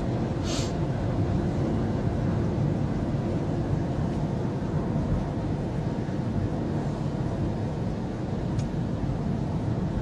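Steady road and engine rumble heard inside a moving car's cabin, with tyres running on a snow-covered road.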